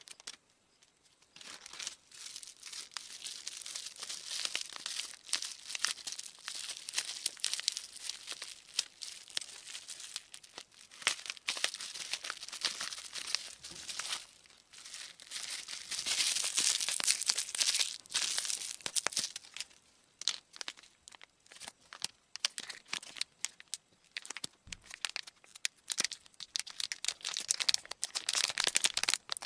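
Plastic and foil packaging crinkling and tearing as it is handled and opened, in uneven bursts with a lull about two-thirds of the way through.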